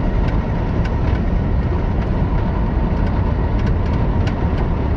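Mack MP8 inline-six diesel in a loaded semi truck running steadily under load, heard from inside the cab as a dense low rumble. The engine has an intermittent misfire that shakes the truck at this RPM under load.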